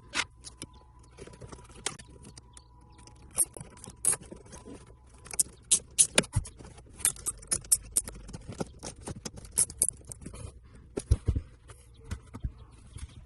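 Irregular clicking, rattling and scraping of hands working plastic trim and wiring, with a faint steady tone for the first five seconds or so.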